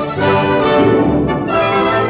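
Orchestral background music with held notes.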